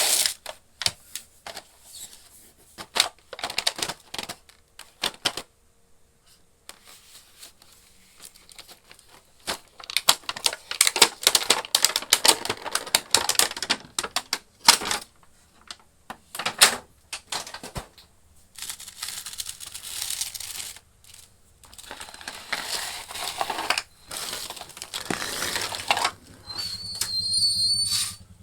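Small plastic toy cooking-set pieces clicking and clacking as they are handled and unpacked, with packaging crinkling and tearing in between.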